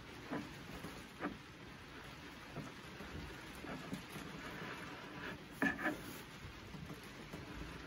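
Plastic knock-on edging lip being cut and peeled off along a worktop edge by hand: faint scraping with scattered small crackling snaps, the loudest pair about five and a half seconds in.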